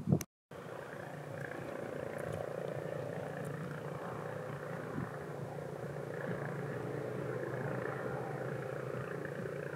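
A motor running steadily, a constant-pitched hum that does not rise or fall.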